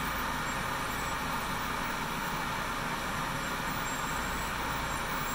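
Steady machine hum and air hiss of a running surface-mount assembly line: reflow oven, pick-and-place machine and solder stencil printer.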